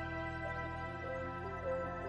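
Soft background music: calm held chords with slowly shifting notes.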